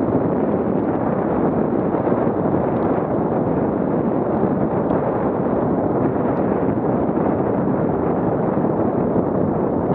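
Steady rushing rumble of wind buffeting the scooter-mounted action camera's microphone, mixed with the scooter's tyres rolling over a dirt path at about 18 mph.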